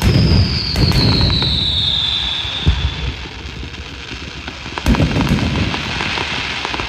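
Aerial fireworks going off: four booming shell bursts, the loudest at the start and about five seconds in, with a high whistle falling in pitch over the first three seconds and crackling in between.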